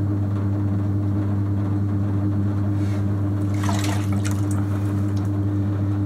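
Electric potter's wheel running with a steady low hum as it spins the pot, and a short wet squelch of slip-covered hands on the clay a little past halfway.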